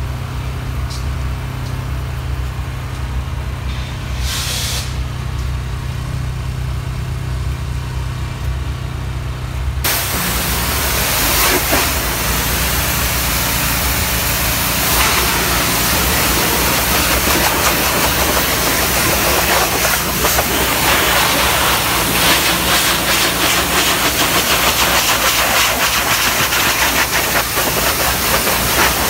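An engine hums steadily, with a short spurt of spray about four seconds in. About ten seconds in, a pressure washer's high-pressure water spray starts suddenly on the truck's chassis and keeps going as a loud, even hiss over the engine hum.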